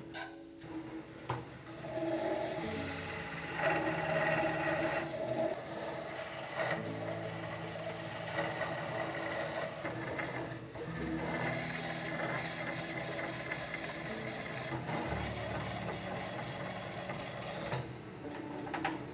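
An abrasive stone grinding the rim of a pot spinning on a turning machine under a water drip: a steady rasping that starts about two seconds in, breaks off briefly around the middle and eases off near the end.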